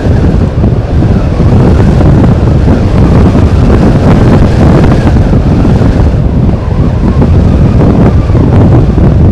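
Wind buffeting an outdoor microphone: a loud, steady low rumble that flutters continuously.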